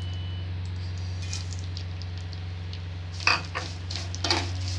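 Steel spoon scraping and clinking against a pan as vermicelli is stirred in hot ghee, a few strokes starting about three seconds in. Before that, faint sizzling of the hot ghee over a steady low hum.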